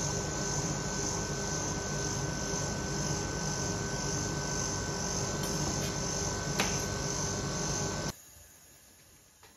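Steady hum and high whine of an ice-roll cold plate's refrigeration unit running, with a metal spatula scraping frozen ice cream into rolls on the steel plate. It cuts off suddenly about eight seconds in.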